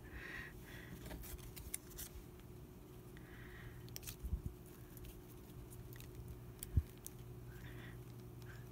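Quiet handling noises of paper being shifted and pressed onto a journal page: soft rustles and light clicks, with one short low knock about seven seconds in, over a faint steady hum.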